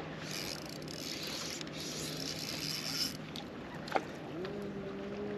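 A fishing reel cranking fast for about three seconds, then a sharp swish about four seconds in as the rod is swept up in a hook set on a fish that is missed. Right after it an electric trolling motor starts with a rising whine and settles into a steady hum.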